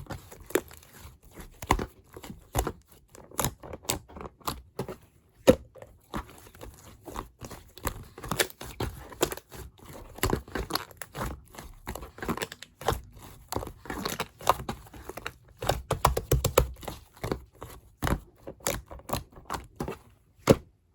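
A whole apple being bitten and chewed: irregular crisp crunches, often several a second, stopping shortly before the end.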